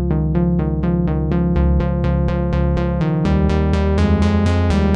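Electronic background music: a synthesizer pattern of short notes, about four a second, over a sustained bass line that shifts about three seconds in.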